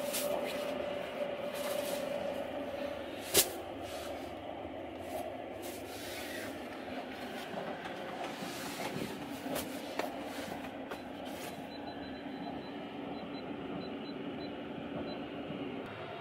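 Steady rumble and hiss of the Sunrise Izumo sleeper train running, heard inside a sleeping compartment, with a faint steady hum. Bedsheets rustle as they are handled, and there is one sharp click about three seconds in.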